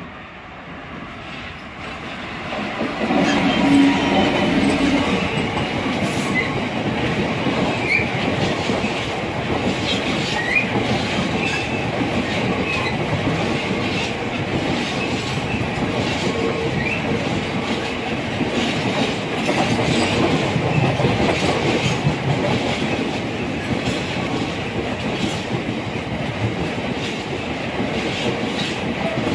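Freightliner Class 66 diesel locomotive 66601 approaching and passing, its engine growing louder over the first few seconds. Then a long rake of cement tank wagons rolls by with a steady rumble and rhythmic wheel clicks over the rail joints, and a few brief wheel squeals.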